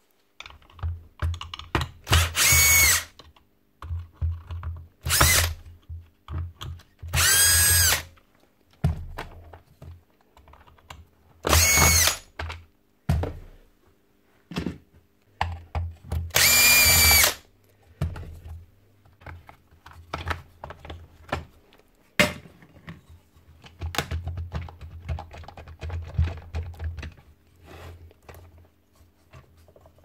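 Cordless drill-driver backing screws out of a plastic power-tool housing in five short whirring bursts, the last one the longest. Clicks and rattles of screws and parts being handled come in between.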